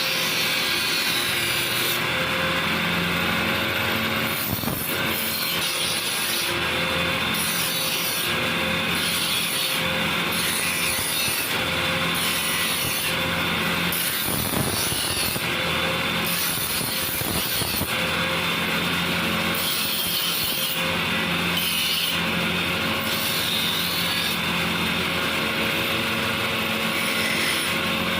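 Electric power tool running continuously under load, working steel for a chef knife, with no hammer blows.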